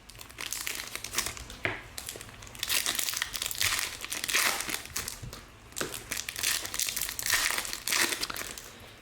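Crinkling and tearing of trading-card pack wrappers being opened by hand, in irregular rustling bursts.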